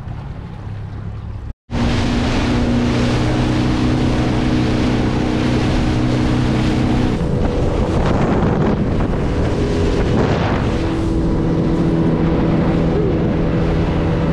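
Outboard motor of a small aluminium boat running at speed, with water rushing past the hull and wind buffeting the microphone. It starts abruptly about a second and a half in, after a quieter stretch, and holds a steady note that shifts once about halfway through.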